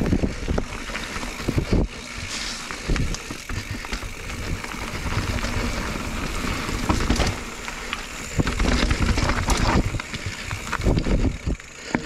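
Mountain bike rolling fast over a dirt and gravel singletrack: knobby tyres on loose stones, with many short clatters and knocks from the bike over bumps, and wind rumbling on the action camera's microphone.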